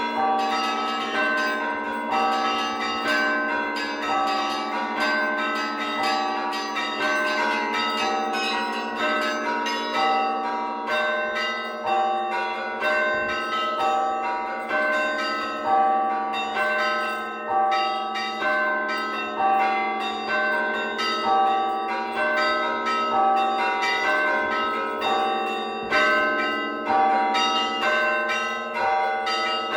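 Russian Orthodox church bells rung by hand in a continuous festal peal. Small bells repeat a quick pattern over the lasting hum of the larger bells, with a heavier stroke about every second and a bit.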